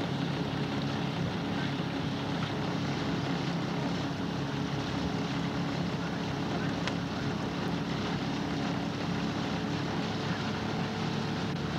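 Outboard motor of a coaching launch running steadily at an even speed, a constant low drone with no change in pitch.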